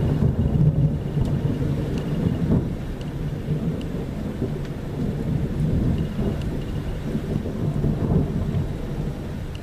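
Thunder rumbling low and long through a storm, loudest about a second in, with rain falling.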